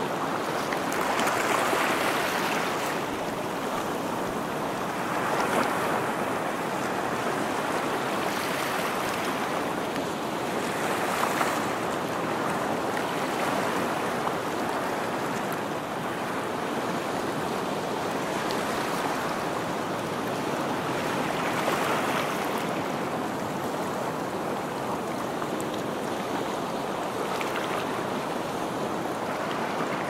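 Ocean surf breaking on a stony shore: a continuous rushing wash that swells and recedes every few seconds as waves come in.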